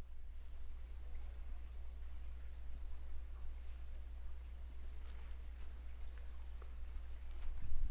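Steady high-pitched insect drone, with a few short high chirps over it and a low steady rumble beneath; a few low knocks come in near the end.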